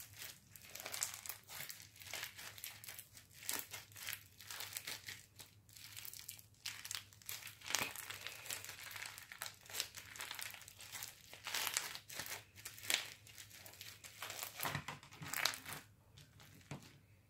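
Crunchy pony bead slime being squeezed and pressed by hand, giving faint, irregular crackles and pops as the beads shift and air pockets burst.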